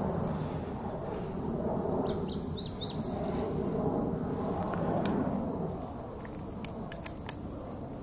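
Male lazuli bunting singing: a quick phrase of high, falling notes about two seconds in, and a few faint notes near the end. Behind it run a steady low rumble of background noise and a fast, even train of short high pips.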